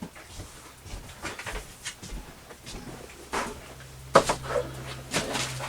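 Scattered knocks, clunks and rustles of objects being handled and moved about, with a sharp knock about four seconds in. A low steady hum comes in around the same time.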